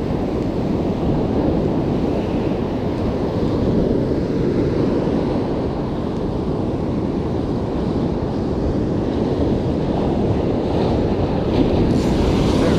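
Surf breaking and washing up a sandy beach, with steady wind noise on the microphone.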